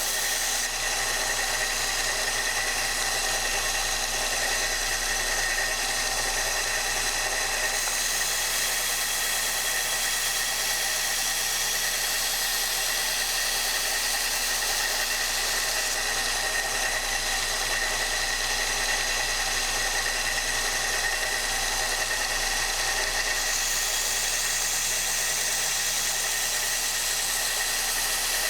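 Kalamazoo 1SM belt sander running steadily while a steel knife edge is ground on a 400 grit belt, removing the coarser grit's scratch marks. The motor's steady hum carries through, and the hiss of steel on the belt swells at times, around 8 s and 24 s in.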